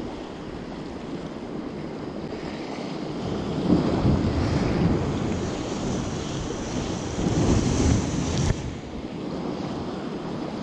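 Sea waves washing with wind buffeting the microphone, swelling louder about four seconds in and again a few seconds later, with a single sharp click near the end.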